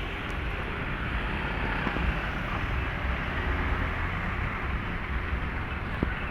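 Steady rushing and rumbling of a moving vehicle, with a couple of faint clicks.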